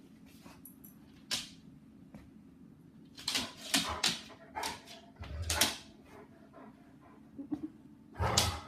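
A dog making short vocal sounds, whines and barks, several in quick succession a few seconds in and another near the end. A single sharp click about a second in.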